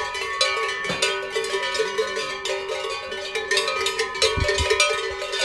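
Several cowbells on a herd of cattle clanking continuously and unevenly as the cows shift about, their ringing tones overlapping.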